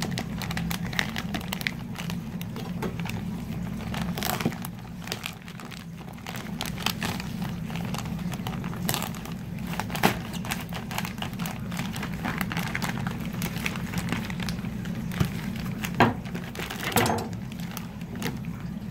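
Hands crinkling and tearing open a plastic FedEx Express Large mailer bag: irregular crackling with a few sharper rips. A steady low hum runs underneath.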